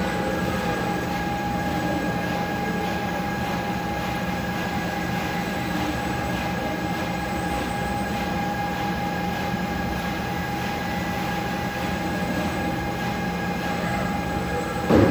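Concrete 3D printer machinery running steadily: a continuous hum with a constant high whine over it. A brief louder sound just before the end.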